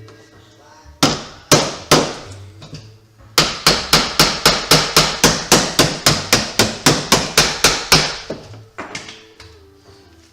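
Hammer blows: three separate strikes about a second in, then a fast even run of about twenty strikes, roughly four or five a second, thinning out near the end. Quiet background music runs underneath.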